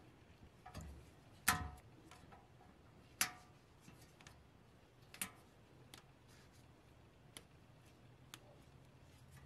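Sharp metallic clicks and taps as small steel parts are handled and fitted against a pressed-steel toy truck's chassis. Three louder clicks come about two seconds apart, the first two with a brief ring, among a few fainter ticks.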